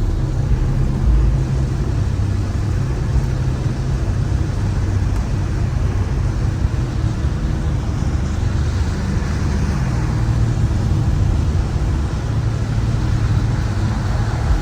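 BMW M5 Competition's twin-turbo V8 running steadily at highway speed, mixed with wet-road tyre noise, heard from inside the cabin with the window cracked open. The engine note shifts briefly partway through.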